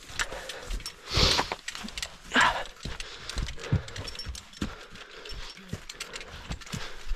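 Irregular footsteps and scuffs of boots over rocky ground, with two louder breathy bursts about a second and two and a half seconds in.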